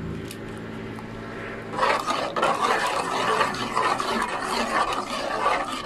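Spatula scraping and stirring a thick peanut-butter sauce against a metal pot, a rough continuous scraping that starts about two seconds in. Before that there is only a low steady hum.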